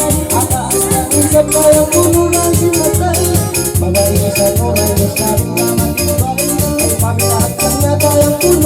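Loud music with a steady beat, bass and a melody line running over it.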